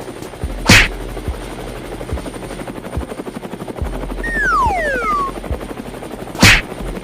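Edited cartoon-style sound effects: a rapid rattling clatter runs throughout, with two loud short noise bursts about six seconds apart. About four seconds in, a falling whistle slides down in pitch.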